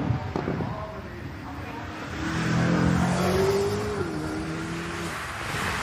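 A racing car's engine running, louder from about two seconds in, with its pitch stepping down near four seconds in.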